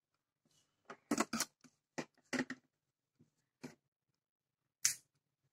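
Hands tying woollen yarn onto a round bamboo hoop frame: a series of short, quiet rustles and soft taps, with a sharper one near the end.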